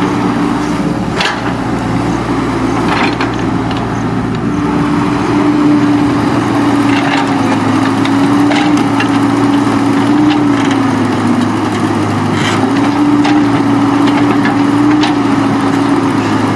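Engine of a working machine running steadily, its pitch sagging and rising a little, with sharp knocks several times.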